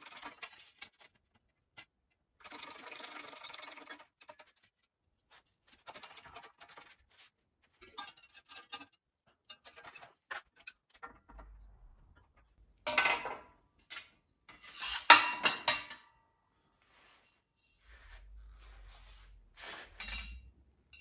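Metal parts clinking, rubbing and scraping as a metal line is bent and test-fitted. The line springs back after bending. There are scattered light clicks, a stretch of scraping a few seconds in, and two louder metallic clanks a little past the middle.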